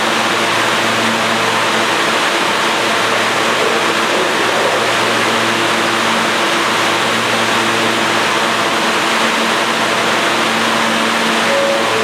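R160 New York City subway train standing in the station, giving off a steady hum over an even rushing noise.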